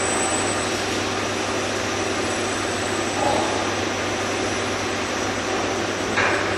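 Steady machinery noise of an industrial workshop: a continuous hiss with a low hum underneath.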